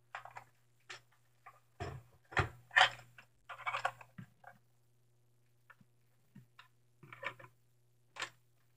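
Irregular plastic clicks and rustling of a tactical sling's clips and strap being handled and fitted to a Nerf Rival blaster, loudest about two to four seconds in, with a few more near the end.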